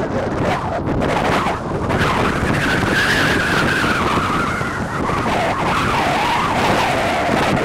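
Wind buffeting the microphone in a steady rush, with a wavering high tone that sets in about two seconds in and slowly slides lower.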